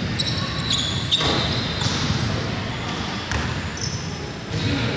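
A basketball bouncing on a hardwood gym floor during play, with several brief high-pitched squeaks of sneakers on the court.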